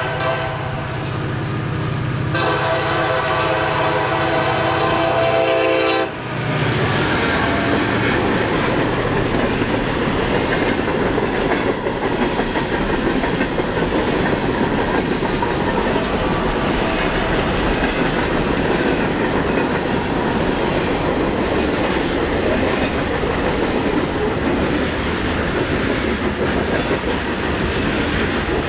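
Freight train led by two EMD SD40-2 diesel locomotives with 16-cylinder two-stroke engines: the horn sounds over the engines' low drone, louder from about two seconds in, and stops about six seconds in as the locomotives pass. Then comes the steady rumble and wheel clatter of hopper cars rolling by.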